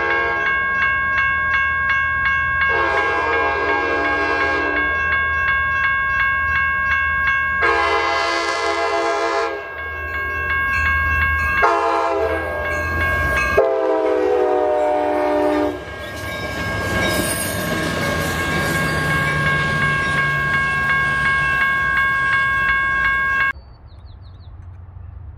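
Train horn sounding four long multi-note blasts, the last two close together, over a steady high-pitched whine. The rumble of the passing train follows, and the sound cuts off sharply near the end.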